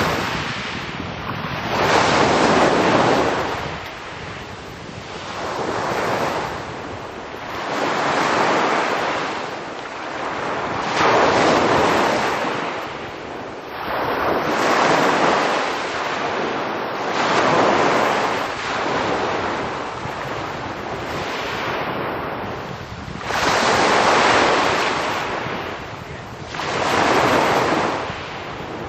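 Small sea waves breaking and washing up a pebble beach, swelling and falling back about every three seconds.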